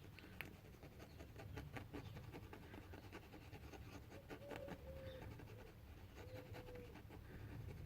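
Faint scratching and small clicks from handling wooden parts and spreading wood glue on a workbench, with two short faint squeaks about halfway through.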